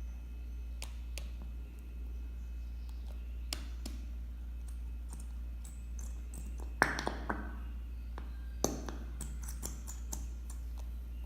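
Glitter-glue bottle being squeezed out and handled: scattered light taps and clicks, the loudest with a short ring about seven seconds in and another just under nine seconds, over a steady low hum.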